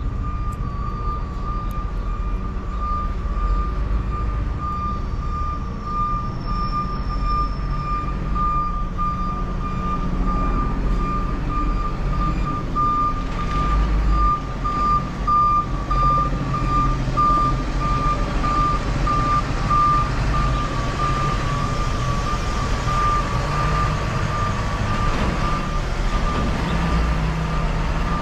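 A truck's backup alarm beeping over and over at one high pitch, over the low rumble of a truck engine that grows louder in the second half.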